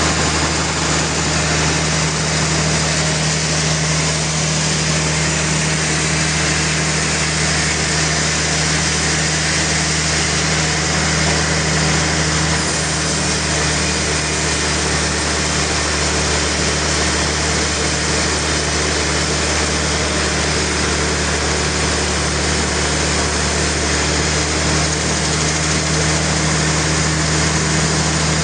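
Engine-driven sawmill saw cutting through a large rain tree (trembesi) log: a steady engine drone with the hiss of the blade in the wood over it.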